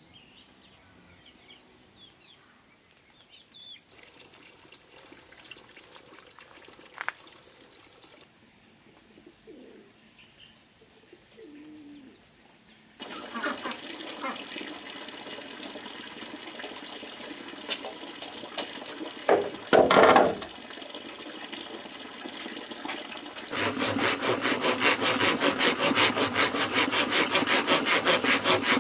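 Birds chirping and a dove cooing over a steady high-pitched whine, then a brief loud noise about two-thirds of the way in. About five seconds before the end, rhythmic hand sawing of wood starts and keeps going.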